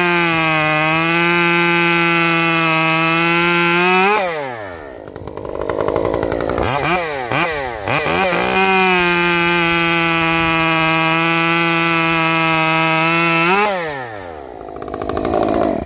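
Stihl MS 194 T top-handle two-stroke chainsaw, converted to a 1/4-inch pitch chain and sprocket, with light intake and exhaust work, cutting maple at full throttle. About four seconds in the engine drops off to idle and is blipped a few times. It then runs at full throttle through a second cut and drops back near the end.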